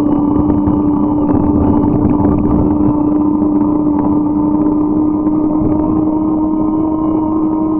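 A bike in motion: a steady droning hum that creeps slightly up in pitch, over a constant rushing noise.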